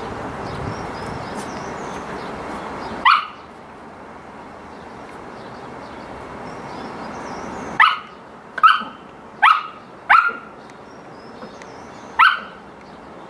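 Samoyed puppy barking in play: short, high-pitched yaps, one about three seconds in, then a quick run of five near the end.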